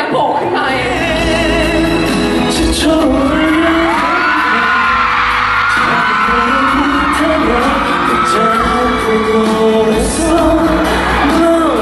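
Pop song playing, with a sung melody over an instrumental backing.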